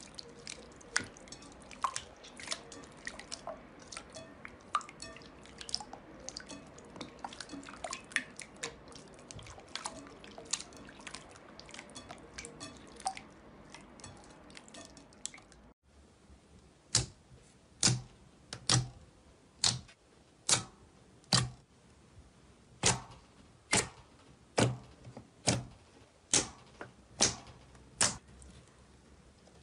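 Hands pressing and working a clear glitter slime, giving a dense run of small wet clicks and crackles. About halfway through, after a cut, a thick green slime gives sharp, regular pops about once a second as it is pressed.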